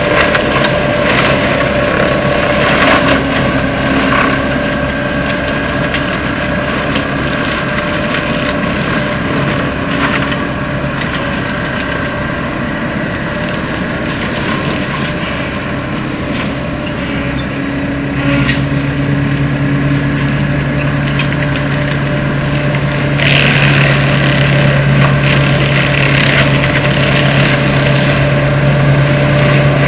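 Seppi MiniForst forestry mulcher on an ASV RC100 tracked skid steer, its rotor shredding brush and wood while the diesel engine runs steadily under load. About two-thirds of the way through the engine note drops lower, and the shredding grows louder near the end.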